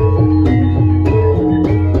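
Javanese gamelan music accompanying a lengger dance: ringing metal mallet instruments play a repeating melody over steady drum strokes.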